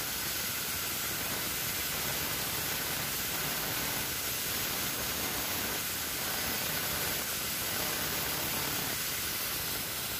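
Bosch GWS 7-115 ET angle grinder running with its disc cutting into a steel bolt that spins in a bench drill press chuck, a steady hiss throughout.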